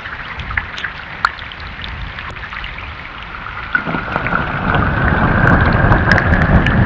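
Rain falling on a pond, with single drops plinking on the water surface. About four seconds in, a low rumble builds and grows louder, with a faint rising tone over it.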